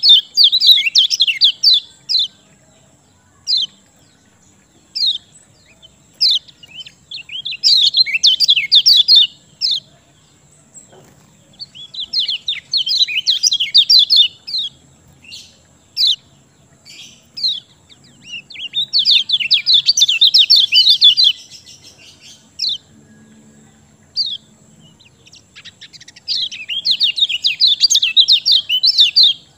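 Kecial kuning singing: five bursts of rapid, high chattering song, each about two to three seconds long, with single sharp chirps between them.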